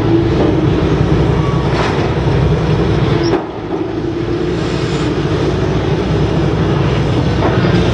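Grapple excavator's engine running steadily with a dense mechanical rumble, dipping slightly in level about three and a half seconds in.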